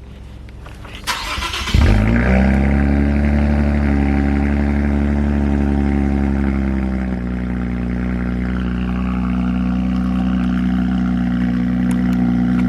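Infiniti Q50's engine cold-starting: the starter cranks briefly about a second in, the engine catches with a jump in loudness, then runs at a steady fast cold idle that settles a little lower about seven seconds in.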